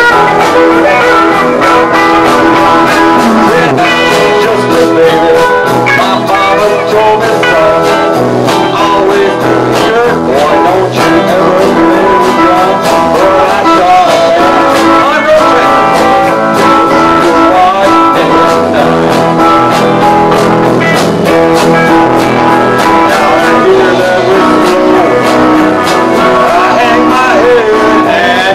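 Small live band jamming: electric guitars and bass guitar playing over a drum kit, with steady drum hits throughout.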